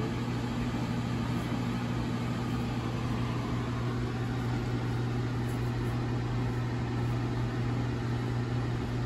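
Steady low background hum that holds the same level and pitch throughout.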